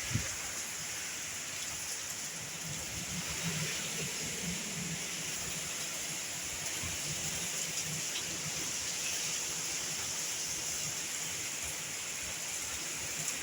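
Steady rain of a hurricane, with wind giving an uneven low rumble beneath it.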